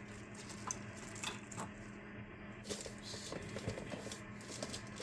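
Faint rustling and light clicks of packaging and small parts being handled, over a steady low hum.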